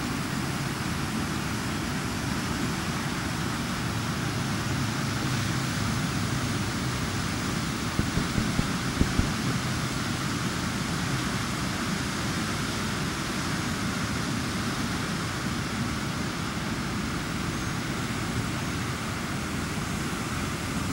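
A creek in flood, its fast muddy water rushing steadily over rapids and through submerged trees. There are a few soft bumps about eight to nine seconds in.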